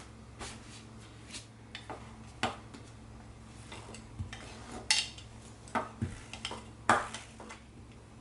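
Kitchen utensils and baking tins handled on a worktop: a dozen or so scattered light clinks and knocks, the loudest about five and seven seconds in.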